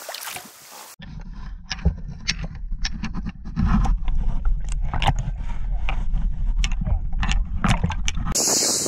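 Water splashing at the boatside, then the muffled sound of a camera under the water from about a second in: a low rumble with scattered sharp clicks and knocks. Near the end a loud hiss returns as the camera comes back up through the surface.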